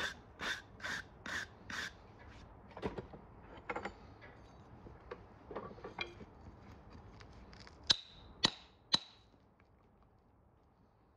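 Five quick brushing strokes across a horse's hoof sole, about two a second, followed by scattered light knocks and clicks as a horseshoe is handled. About eight seconds in, three sharp ringing metallic clinks of the horseshoe.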